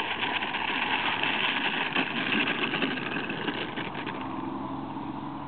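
Radio-controlled model Cessna taxiing across asphalt: an even, flickering whirr from its motor, propeller and wheels that starts suddenly and dies down after about four seconds.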